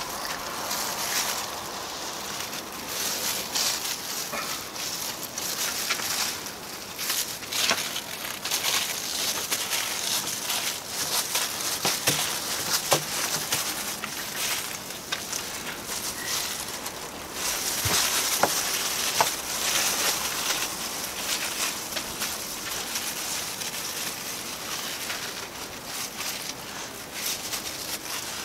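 Fiberglass cloth rustling as gloved hands unroll and smooth it over wet epoxy on the panel, with a few sharp clicks and taps along the way.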